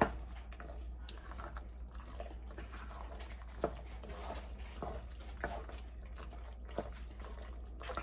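Penne pasta being stirred into a thick cream-and-Parmesan Alfredo sauce: wet, squelching mixing, with a sharp click of the utensil against the pot every second or so.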